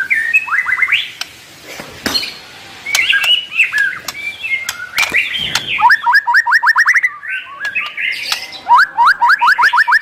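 White-rumped shama singing a varied song full of mimicked phrases (isian): clear whistled notes and sharp clicks, broken by fast runs of rising notes at about seven a second, one about six seconds in and a longer one from near nine seconds.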